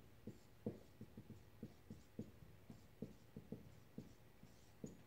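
Faint, irregular ticks and short strokes of a marker writing on a whiteboard, about fifteen in all.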